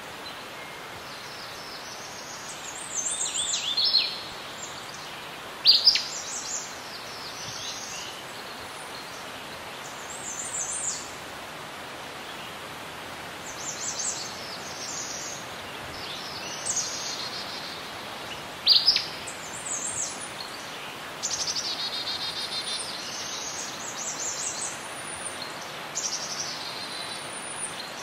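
Birds singing and calling, with scattered sharp chirps, warbles and a rapid trill, over a steady background hiss.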